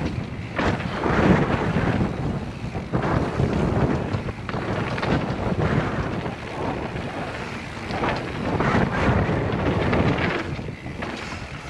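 Wind rushing over a helmet-mounted camera's microphone during a fast mountain-bike descent on a dirt trail, with irregular knocks and rattles from the bike over the bumps. It eases a little near the end as the bike slows.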